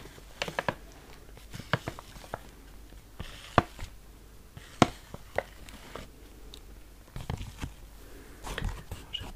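Glossy plastic pouch of sewing-thread spools being handled, its plastic crinkling in sharp, separate clicks and short crackles, busier in the last couple of seconds.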